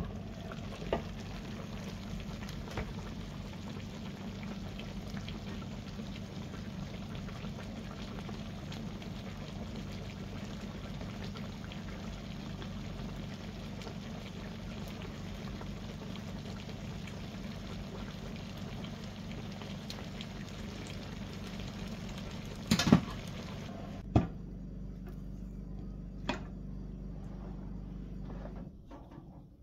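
Stuffed vegetables and chicken simmering in their juices in a double grill pan over a gas burner: a steady bubbling hiss, with a few sharp knocks, the loudest about three-quarters of the way through. After that the bubbling drops away, leaving a low hum that fades just before the end.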